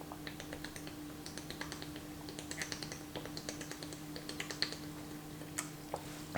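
Faint, irregular small clicks and ticks, several a second, from a person drinking water.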